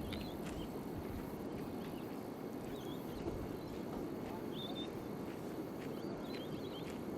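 Steady rush of the flooded Burdekin River flowing fast under the bridge, with short bird chirps coming in several times over it.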